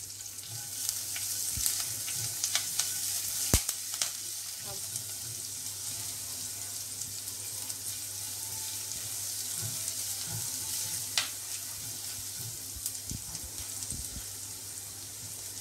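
Chopped garlic and curry leaves sizzling steadily in a little hot oil in a nonstick pan, stirred with a spatula, with a few sharp clicks.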